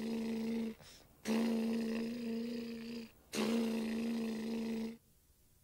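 A boy imitating a car engine with a lip-buzzing "brrrm" held at a steady pitch. One buzz ends under a second in, then come two more of about two seconds each, with short breaks between them.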